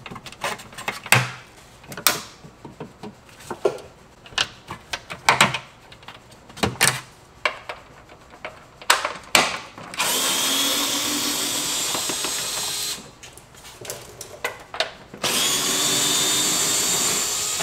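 Scattered clicks and knocks of hand work on plastic line clips. Then a cordless power tool runs steadily twice, for about three seconds and then for about two and a half seconds.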